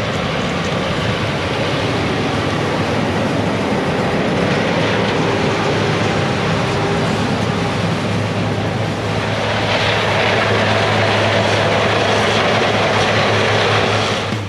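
Diesel harvest machinery running steadily: a low engine hum under dense mechanical noise that grows louder about nine and a half seconds in.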